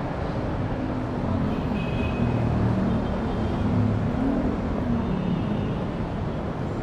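Small motorcycle engine running at low speed amid street traffic noise, its pitch wavering and rising briefly about four seconds in.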